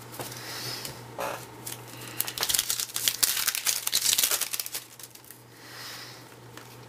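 Plastic wrapper of a baseball card pack crinkling and tearing as it is opened, busiest in the middle of the stretch, over a faint low steady hum.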